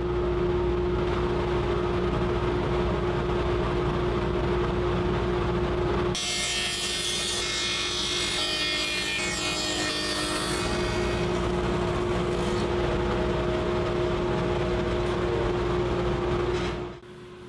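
Table saw with a half-inch dado stack running with a steady whine. About six seconds in, it cuts box-joint fingers through stacked plywood for about five seconds, a louder, rushing cut. It then runs free again until the sound drops away near the end.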